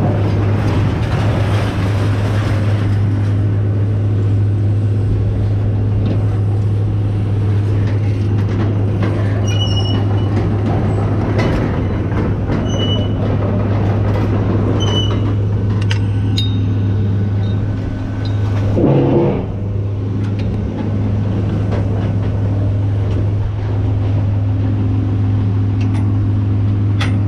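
Engine running steadily with a constant low hum, with scattered metal clanks and short high-pitched squeals and rings of scrap metal being unloaded. A brief louder scraping comes about two-thirds of the way through.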